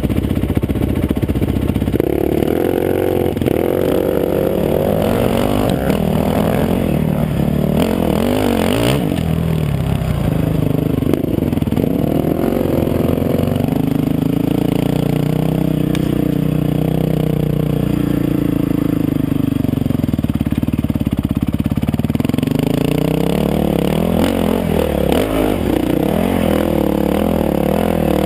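Dirt bike engine running hard, its pitch rising and falling again and again with the throttle as it is ridden over rough dirt trail.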